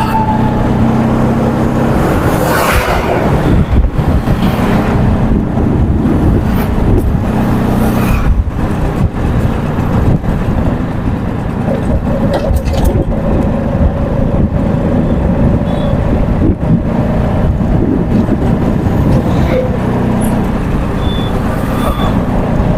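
Road noise from riding through traffic: a loud steady rumble with an engine hum that shifts in pitch and fades in and out several times.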